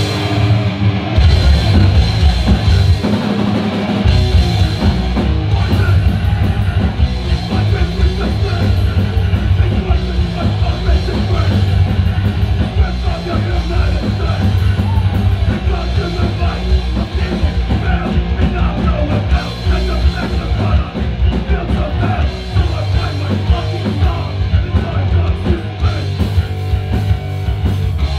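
A heavy rock band playing loud and live: pounding drum kit, distorted electric guitar and bass guitar, kicking in abruptly at the start.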